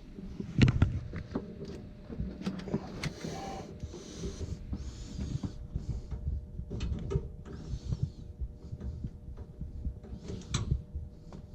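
Scattered clicks, knocks and rustling from hands working a hose and its fittings in a cramped space behind a boiler, with the loudest knock about half a second in.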